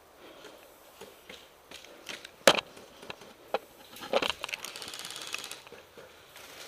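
Sharp clicks and knocks of airsoft gear being handled, the loudest a single click about halfway through, followed by a fast mechanical rattle lasting about a second.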